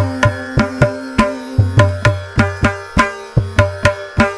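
Instrumental interlude of a Tamil devotional song, Carnatic in style: plucked strings over a steady drum rhythm of about three to four strokes a second, with no singing.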